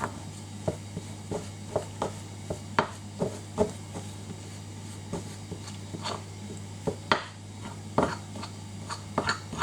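A spoon stirring a stiff, flour-thickened honey-and-mustard mixture in a bowl, knocking and clinking against the bowl at irregular intervals, about one or two times a second, over a steady low hum.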